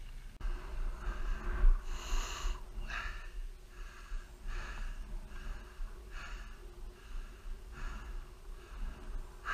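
Heavy, rhythmic breathing of a winded enduro rider close to the helmet microphone, about one breath a second, over a low steady rumble.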